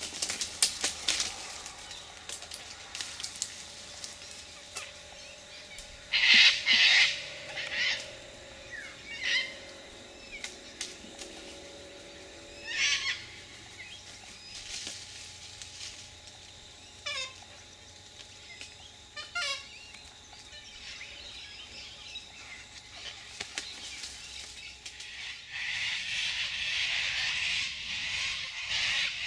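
Sulphur-crested cockatoos screeching: about half a dozen harsh calls spread apart, the loudest a double screech about six seconds in. A steady hiss of background noise comes up near the end.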